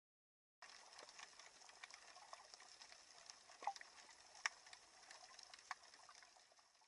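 Underwater sea ambience: a faint steady hiss scattered with irregular sharp clicks and crackles, with a few louder clicks in the middle. It starts suddenly about half a second in and fades out at the end.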